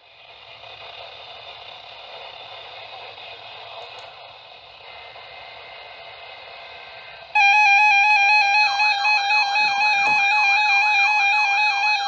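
Weather radio receiver hiss with faint tones. About seven seconds in, loud warbling digital data tones start suddenly: the SAME/EAS header bursts that open a NOAA Weather Radio Required Weekly Test.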